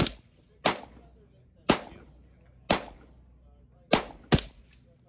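Rifle shots on a firing range: six sharp reports, each with a short ringing tail, spaced roughly a second apart. Two come close together near the end, followed by a couple of fainter shots.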